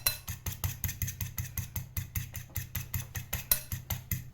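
Egg whites being beaten by hand in a bowl, the utensil clicking against the bowl in a fast even rhythm of about six or seven strokes a second, stopping right at the end.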